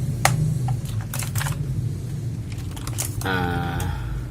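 Keys being pressed on an HP GK400Y mechanical keyboard with clicky blue switches: a handful of separate sharp clicks. A short voiced hum comes in near the end.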